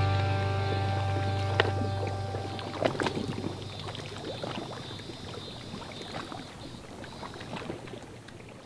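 Small waves lapping and splashing irregularly against a rocky lakeshore ledge, the sound gradually fading down.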